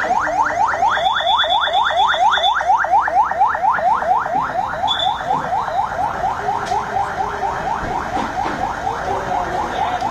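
Police vehicle siren in fast yelp mode: a rapid string of rising whoops, about four to five a second, fading slightly in the second half.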